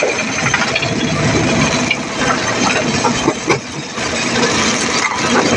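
Heavy machinery with an engine running under a dense, continuous clatter and grinding, as at a stone-crushing site; the noise dips briefly about three and a half seconds in.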